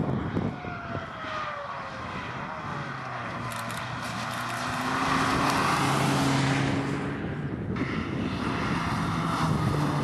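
Rally car engine heard in the car: the revs fall over the first two seconds, then hold at steadier speeds that step up and down, with road and wind noise swelling about halfway through.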